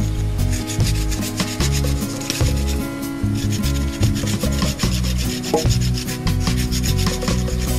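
A knife shaving and scraping along a wooden stick in quick repeated strokes, with background music underneath.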